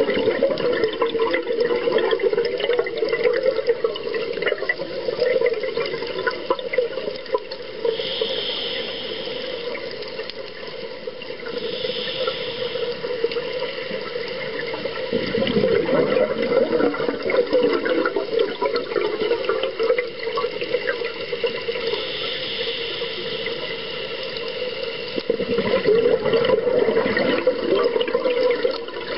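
Scuba diver breathing on a regulator, heard underwater through the camera housing: ongoing bubbling and gurgling from the exhaled air, with a few hissing inhalations.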